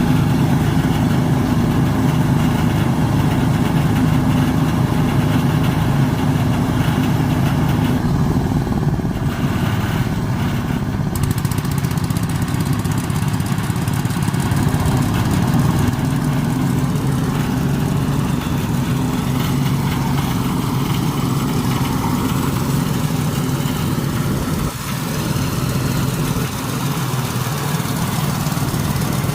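A small engine running steadily at constant speed, with a brief dip in level about 25 seconds in.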